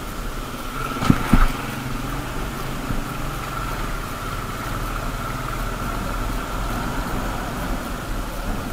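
Motorcycle engine running at low speed with a steady whine over it, and two sharp thumps close together a little over a second in.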